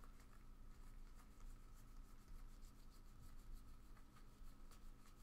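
Faint rubbing and scattered light ticks of trading cards being slid and flipped through by hand, over a steady faint electrical hum.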